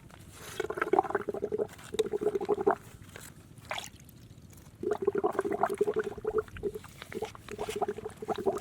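Wet gurgling and squelching of muddy water at an eel hole, in four bursts of a second or so each.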